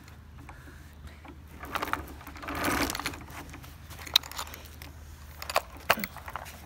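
Metal chain and metal sand bucket of a playground sandpit toy clinking and rattling as it is handled, with sand scraped and scooped into the pan. The sharp clicks are loudest about four seconds in and again near six seconds, with a longer noisy scrape of sand a little before three seconds.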